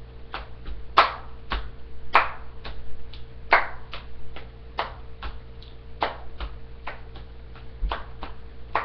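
A child's hand claps and slaps in a quick, uneven cheerleading rhythm, some sharp and loud, others lighter, with a few low thumps.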